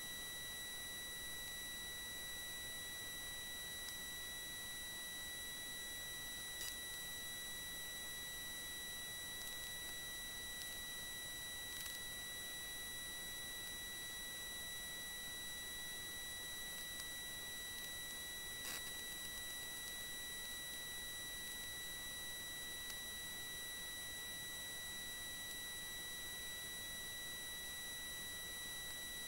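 Steady high-pitched electronic whine over a faint hiss, with a few faint clicks.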